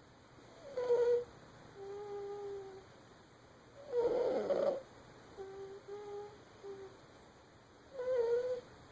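Baby snoring: a squeaky, pitched snore on each breath, about three breaths, each a louder rougher sound followed by a softer steady tone.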